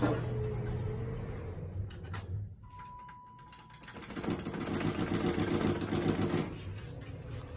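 Thyssenkrupp impulse hydraulic elevator in operation: a low steady hum for the first couple of seconds, a single steady beep about three seconds in, then a louder rattling mechanical run for about two and a half seconds that stops suddenly.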